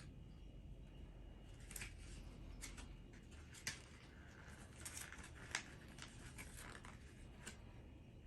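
Faint, scattered rustles and light clicks of small objects being handled, two of them sharper than the rest about three and a half and five and a half seconds in.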